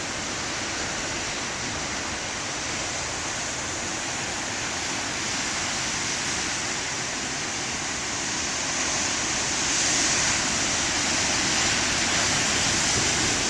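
Large ocean waves breaking and washing ashore as one continuous rush of surf, swelling louder about nine seconds in.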